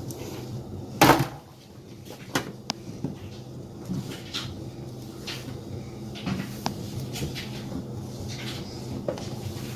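Seasoned potato pieces being tipped from a bowl and set out one by one on a baking tray: one louder knock about a second in, then scattered light clicks and knocks, over a faint steady low hum.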